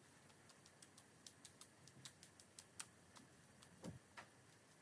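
Faint, irregular ticks of a fan-shaped splatter brush being flicked to spatter drops of paint onto paper.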